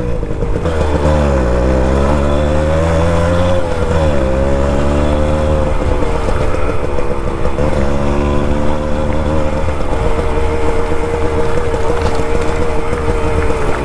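Suzuki Max 100's single-cylinder two-stroke engine running under way. The revs drop and climb again about three times as the throttle is eased and reopened, then hold steady.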